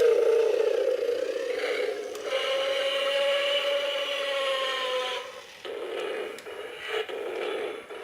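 RS6158 remote-control toy dragon playing its recorded roar through its small built-in speaker, a pitched electronic roar that ends about five seconds in. After it comes a rattling mechanical whir with regular clicks.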